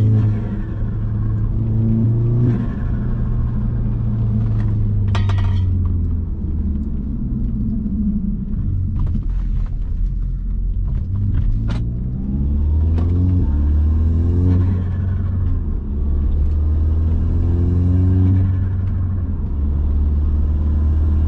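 Audi S3's turbocharged 2.0-litre four-cylinder engine revving over and over with its diverter valve removed, the engine note rising and falling several times. About five seconds in there is a short burst of rapid sharp chatter, typical of the turbo fluttering when the throttle snaps shut without a diverter valve.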